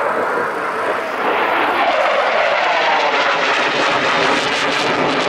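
Loud jet noise from an F-35 Lightning II's single Pratt & Whitney F135 afterburning turbofan as it flies a display manoeuvre overhead, with a tone that falls in pitch about two seconds in.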